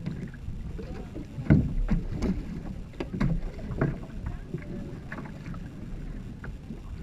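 Racing canoe being pushed off a concrete wall with paddles: a handful of sharp knocks from paddle and hull, the loudest about a second and a half in, over a steady wind rumble on the microphone.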